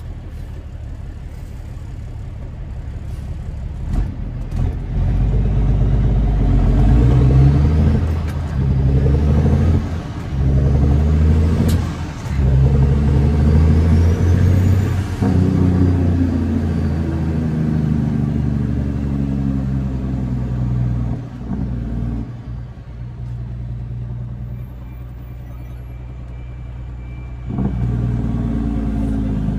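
Cat C13 diesel engine of a Kenworth W900 working hard, most likely on its jake brake, heard from inside the cab. It swells about five seconds in and stays loud with several short breaks, drops back after about twenty seconds, and rises again near the end.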